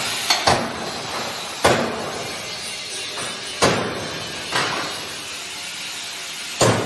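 Hammer blows on steel, about six sharp metallic clangs at irregular intervals, each ringing briefly, over steady workshop noise.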